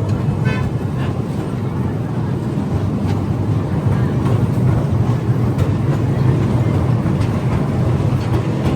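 Steady low rumble of a small tourist ride-on train running along, with wind buffeting the microphone.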